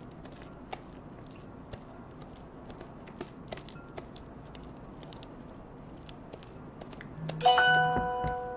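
Slime being kneaded by hand, making small sticky clicks and crackles. About seven seconds in, a single bright ringing tone, the loudest sound, starts sharply and fades over about a second.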